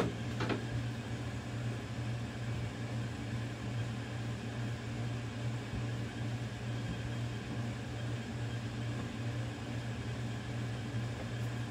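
Steady low hum with an even hiss of room noise, and a knock right at the start.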